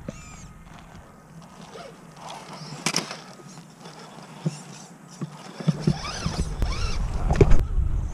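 Electric 1/10-scale RC rock crawlers driving over rock, their motors whining up and down in pitch, with a few sharp knocks. The motors get louder over a low rumble in the last couple of seconds.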